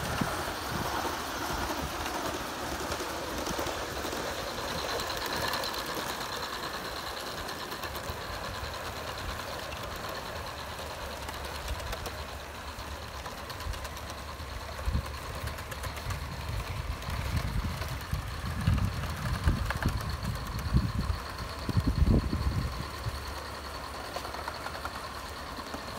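Garden-scale model trains running along elevated track: a steady mechanical rattle and whir with a faint high whine throughout. Irregular low thumps come in over the second half.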